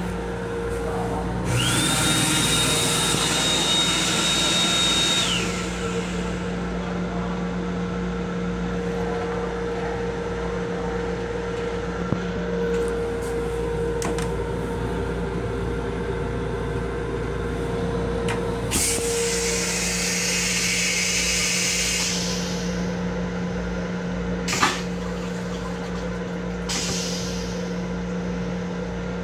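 Restroom fixtures of an LIRR M7 railcar working over the car's steady hum. There is a hissing rush of about four seconds with a steady high whistle in it, then a toilet flush swirling water through the bowl. A second hissing rush comes about two-thirds of the way through, followed by a single sharp click.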